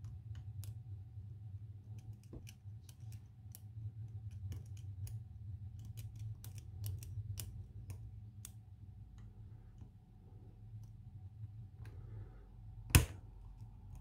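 Small metallic clicks and ticks from a hook pick working the pins of an ABUS pin-tumbler lock cylinder under tension, scattered irregularly, with one sharper, louder click near the end. A low steady hum runs underneath.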